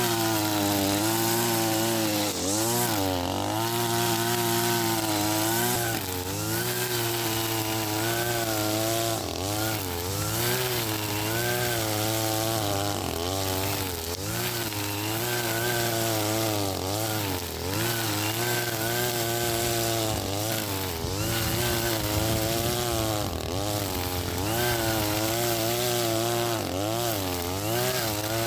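Husqvarna 542RBS brush cutter's 42cc two-stroke engine running at high speed, its pitch dipping and recovering every few seconds as the spinning line cuts into thick grass.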